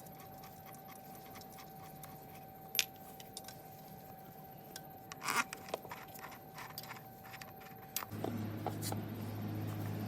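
A few light metallic clicks and clinks, with a small cluster about halfway through. A steady low hum starts near the end.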